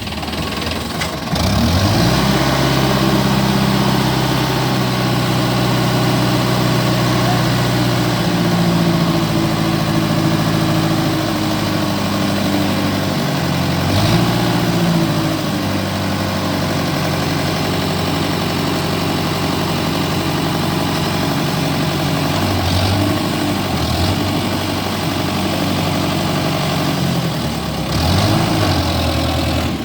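An engine running steadily at a low, even pitch. It speeds up about two seconds in, then dips and picks up again a few times.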